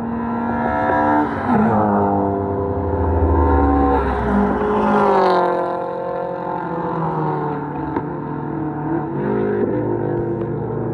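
Several cars running at speed down a racetrack straight and passing close by; their engine notes overlap, and the pitch drops as each car goes past, once about a second and a half in and again around five seconds in.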